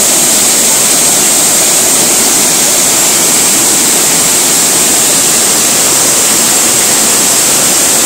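Waterfall pouring into a plunge pool: a loud, steady rushing hiss that does not change.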